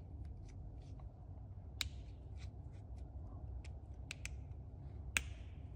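Light clicks and small taps of a screwdriver tip and plastic connector catches as wires are unclipped from a Makita DHS680 cordless circular saw's trigger switch. Two sharper clicks stand out, about two seconds in and near the end, over a low steady hum.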